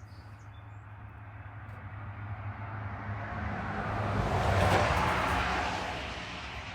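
A motor vehicle passing by: a rushing noise that grows steadily louder, peaks about two-thirds of the way through and then fades, over a steady low hum.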